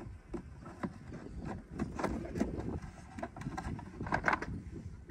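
Wooden hive frames being lifted out of a wooden Langstroth hive box, with light knocks and scrapes of wood on wood, over a low wind rumble on the microphone.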